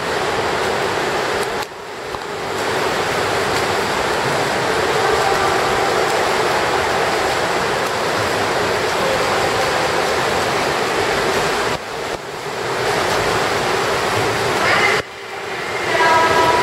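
Indoor swimming pool ambience: a steady wash of water noise from swimmers splashing through laps, dipping briefly a few times.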